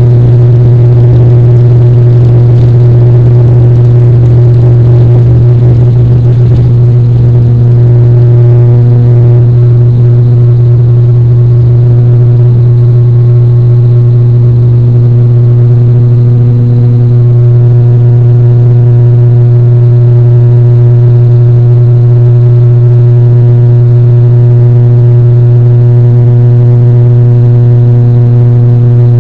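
Quadcopter drone's electric motors and propellers running with a loud, steady hum, a strong low tone with a stack of higher overtones that shift only slightly.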